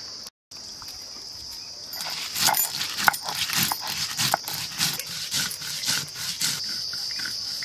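Mustard seeds and dried red chillies being ground to a wet paste on a flat stone slab with a stone roller (shil-nora): gritty stone-on-stone rubbing in repeated strokes, about two a second, starting about two seconds in. Insects buzz steadily behind it.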